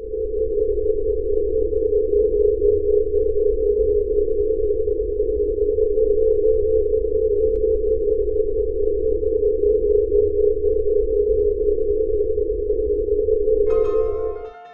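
A loud, steady electronic tone with a low rumble beneath it, unchanging until it cuts off just before the end, as piano music comes in.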